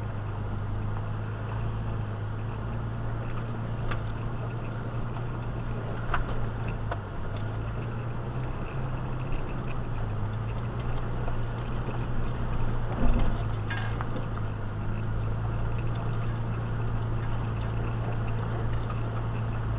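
Toyota 4x4 driving slowly over a rocky trail: a steady low engine drone, with scattered clinks and knocks from the vehicle and a louder knock about thirteen seconds in.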